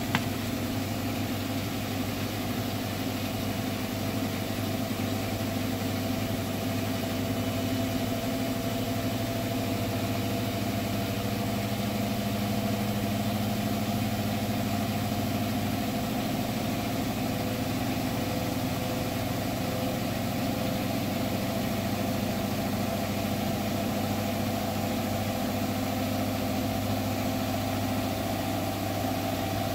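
Hotpoint washing machine on its final spin at 1400 rpm, a steady high-speed drone with a weird knocking noise running through it.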